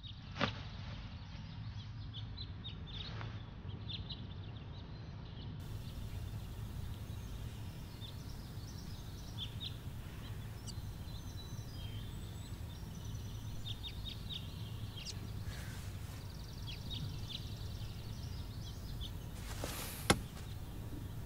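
Quiet ambience: small birds chirp now and then over a steady low hum. There is a sharp knock just after the start and a louder one near the end.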